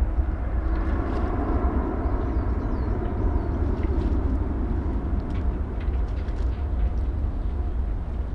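Jet engines of a Boeing twin-engine airliner climbing out after takeoff: a steady deep rumble with a broad roar above it, easing slightly toward the end as the aircraft draws away.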